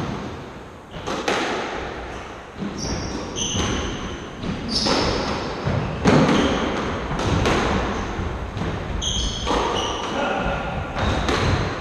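Squash rally: the ball striking rackets and the court walls in a quick series of sharp hits, about one a second, with shoes squeaking briefly on the wooden floor between them.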